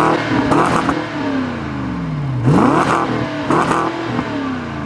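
BMW 645Ci's 4.4-litre V8 revved twice, at the start and again about halfway through, the revs falling away slowly after each blip.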